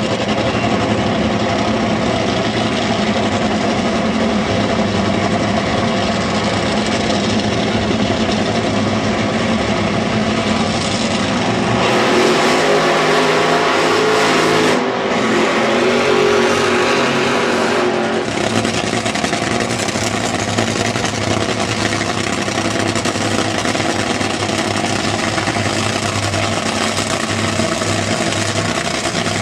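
Top Fuel dragster's supercharged nitromethane V8 running steadily, then revved hard for a burnout about twelve seconds in, lasting some six seconds with a brief dip partway, before dropping back to a steady idle as the car rolls.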